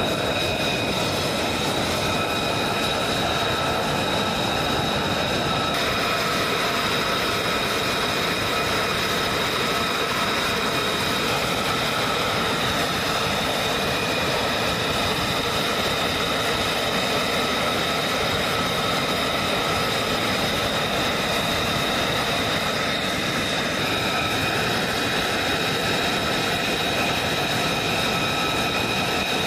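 F-35A Lightning II's single F135 turbofan running at ground idle: a steady rush of jet noise with a steady high-pitched whine over it.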